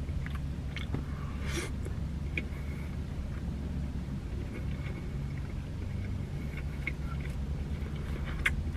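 A steady low hum in a car's cabin, with a few faint clicks and a brief rustle about a second and a half in as a person eats from a foam takeout box with a fork.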